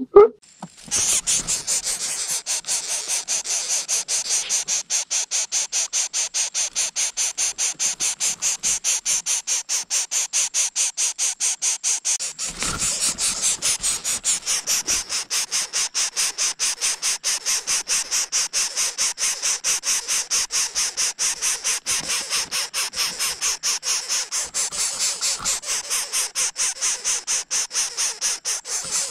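Greater coucal nestlings begging in the nest: a high, rapidly pulsing hiss, about four or five pulses a second, kept up without a break.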